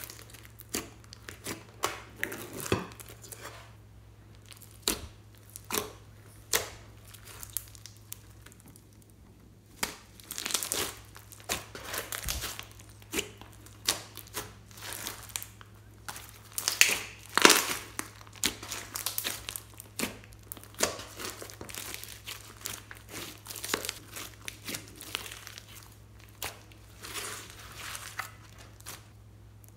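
Hands kneading, folding and stretching slime mixed with foam beads: irregular sticky crackling and squelching made of many small clicks, busiest and loudest a little past the middle.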